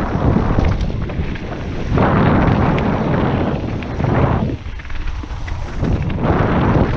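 Wind buffeting the microphone over mountain bike tyres rolling on loose stones and rock, with the bike clattering over the bumps. The noise drops briefly about two-thirds of the way through, then picks up again.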